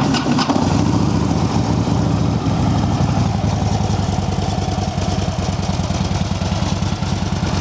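2007 Harley-Davidson Ultra Classic's 96-cubic-inch V-twin idling steadily through true dual exhaust with Screaming Eagle mufflers, coming in about half a second in. The engine and mufflers sound good.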